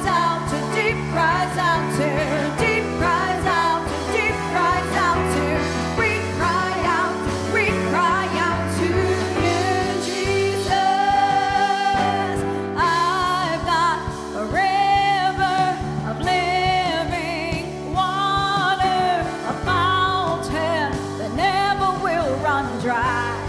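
Live gospel worship music: a singer's voice over a band with steady bass and keyboard chords.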